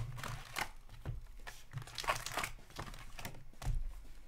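Foil wrappers of Upper Deck hockey card packs crinkling in a series of short rustles as a handful of packs is pulled from the box and handled.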